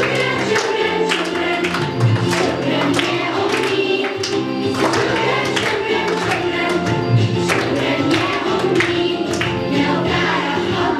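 A song with a group of voices singing over a steady beat.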